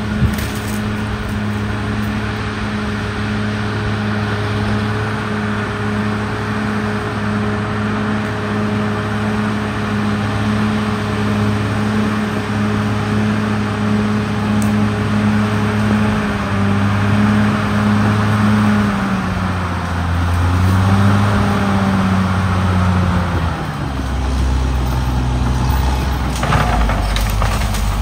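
Caterpillar D6R XL bulldozer's diesel engine running steadily as the dozer pushes soil along a dirt road. Past the middle its note wavers, then drops lower, with a brief clatter near the end.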